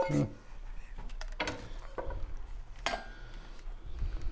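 Wooden spoon scraping and knocking against a frying pan and a glass baking dish as a chicken, mushroom and shrimp topping is spooned out and spread, with a few sharp clinks, the loudest about three seconds in.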